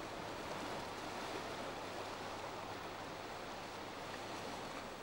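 Faint, steady rushing of distant sea surf breaking against the island's rocks below.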